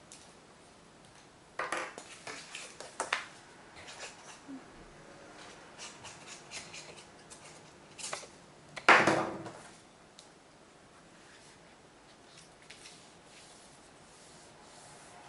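Sheets of scrapbook paper being handled and rustled on a table, with light taps and clicks as pieces are glued and pressed down. The loudest is a brief rustle about nine seconds in.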